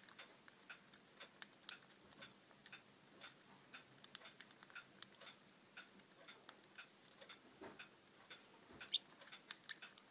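Pacific parrotlets cracking seed with their beaks: faint, quick, irregular little clicks, several a second, with a couple of louder cracks near the end.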